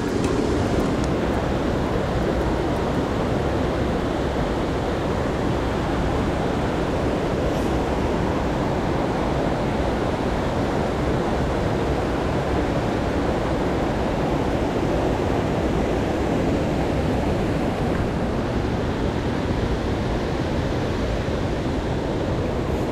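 Mountain creek rushing steadily over boulders and cobbles, an even, unbroken wash of water noise.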